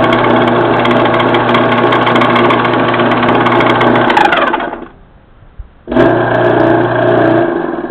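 Craftsman Dunlop 109 metal lathe running on its electric motor: a steady hum with a whine of spinning gearing and light rattles. It is switched off about four seconds in, the whine falling as it winds down, and switched on again about six seconds in for a second short run.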